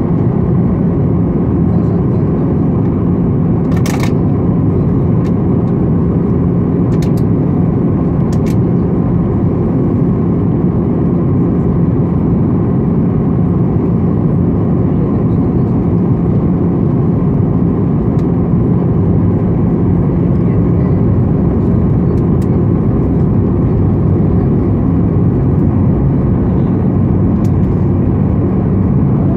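Steady cabin drone inside a Boeing 737-800 during its descent on approach: the CFM56-7B engines and rushing airflow heard through the fuselage at a window seat over the wing, with a constant low hum. A few brief clicks come about four, seven and eight seconds in.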